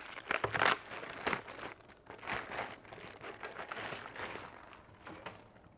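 Clear plastic bag crinkling and rustling as it is pulled open and off by hand, in irregular crackles that grow fainter toward the end.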